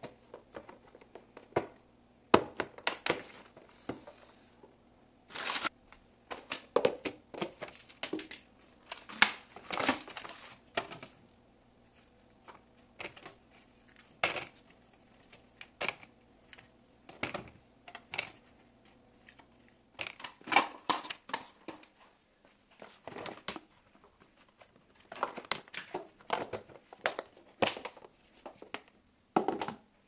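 Clear plastic food storage boxes and their lids being handled, snapped shut and set down, with crinkling of thin plastic packaging such as a strawberry punnet: many irregular clicks, knocks and rustles.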